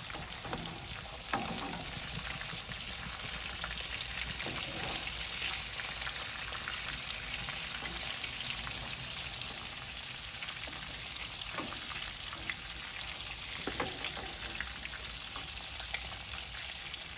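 Panko-crumbed, beer-battered dolphin fish fillets sizzling and crackling steadily as they shallow-fry in hot oil in a pan. A few light clicks of metal tongs and a spatula against the pan as the fillets are turned.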